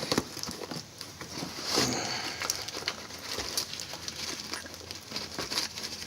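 Rustling and scattered small clicks and knocks of a mailed package being handled and opened, with a louder rustle about two seconds in.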